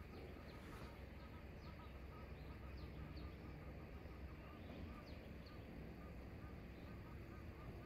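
Faint birdsong: a steady run of short repeated chirps, with now and then a higher chirp that falls in pitch, over a low steady rumble.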